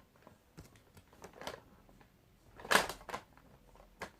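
Handling noise: scattered light clicks and taps, with one louder short rustle a little under three seconds in.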